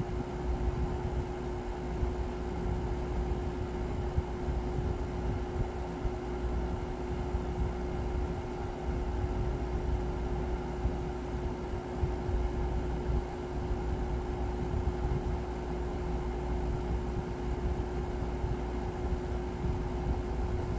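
2012 Frigidaire FRA054XT7 5,000 BTU window air conditioner running in cooling mode, with the compressor on: a steady rush of air from the fan with a constant hum running under it.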